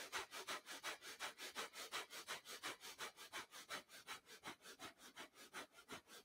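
Rapid, forceful breath-of-fire breathing through the nose: short, sharp breaths at about six a second, evenly paced, near the end of a round kept up at its fastest pace.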